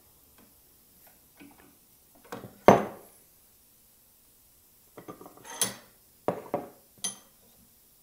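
Metal clinks and clunks from a steering-shaft universal joint being handled in a steel bench vise while its needle-bearing cups are pressed in. A single loud clunk about three seconds in, then a cluster of ringing clinks about five to seven seconds in.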